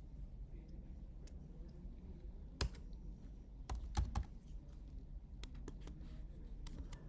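Typing on a computer keyboard: scattered keystrokes, with the loudest a single stroke about two and a half seconds in and a quick cluster of strokes around four seconds in.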